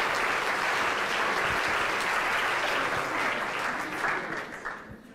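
Audience applauding, the clapping thinning out and fading away over the last second or so.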